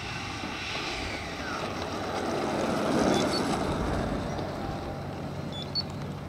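120 mm Schübeler electric ducted fan of a large model L-39 jet, a rushing whine as the jet rolls past on the runway. It swells to its loudest about three seconds in, then fades as the jet moves away.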